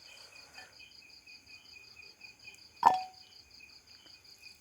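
Insects chirping steadily in rapid, even pulses. About three seconds in, a single sharp knock with a brief ring.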